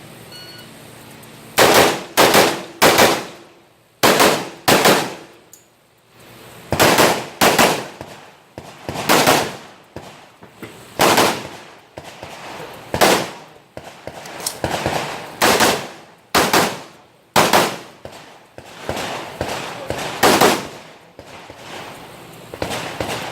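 Rifle shots fired in a series of about twenty at an uneven pace, roughly one a second, some in quick doubles and triples, each followed by a short ringing decay.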